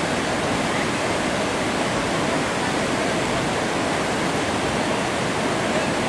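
Whitewater river rapids rushing steadily over boulders.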